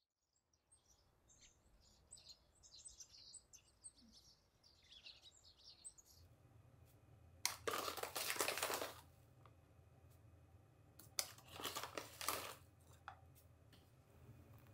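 Small birds chirping for the first several seconds. Then a bag of ground coffee rustles and crinkles in two bursts, each about a second and a half long, as coffee is tipped from it into a paper filter in a pour-over dripper, over a low room hum.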